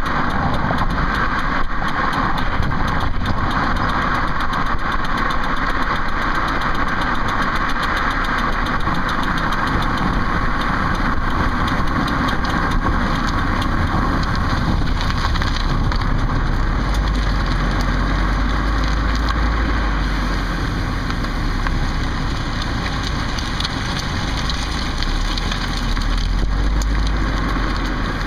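2008 Ford Focus running, a steady mechanical noise with a fine repeated clicking from around the back wheel, a noise whose cause the owner cannot find.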